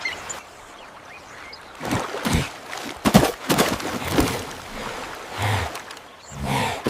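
Water splashing and sloshing in several irregular bursts.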